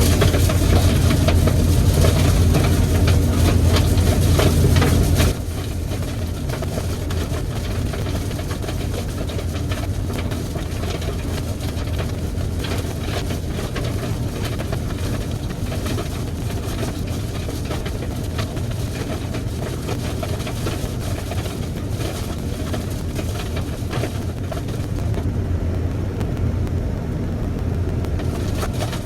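Gleaner combine harvester running steadily while harvesting corn, a loud, constant low drone of engine and threshing machinery. About five seconds in, the sound drops abruptly to a somewhat quieter steady drone.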